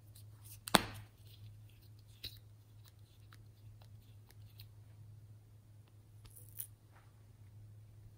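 A small plastic tube with a duck-shaped cap handled in the fingers: one sharp plastic click about a second in, a smaller one a second later and another near the end, with faint taps and rustles between, over a steady low electrical hum.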